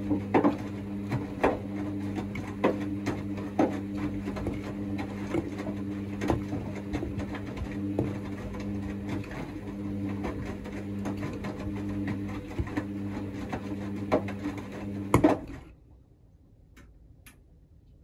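Hoover DXA front-loading washing machine tumbling its load in the rinse: a steady motor hum with regular knocks from the tumbling laundry about once a second. The motor stops after a loud knock about fifteen seconds in, leaving only a couple of faint clicks.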